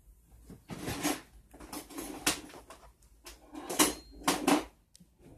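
Handling sounds from Peeps candy packaging on a countertop: a few short bursts of rustling and light knocks about a second apart, with quiet gaps between.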